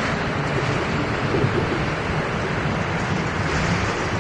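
Chu-Kuang Express passenger coaches rolling away along the track: a steady, even rumble of wheels on rail with wind on the microphone.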